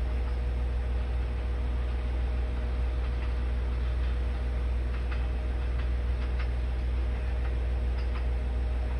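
JR Hokkaido KiHa 40 diesel railcar pulling away in the distance: a steady low engine drone, with faint clicks of its wheels over the rail joints from about a third of the way in.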